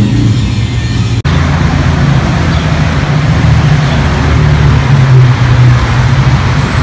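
Loud, steady low hum of a running engine, with a brief dropout about a second in.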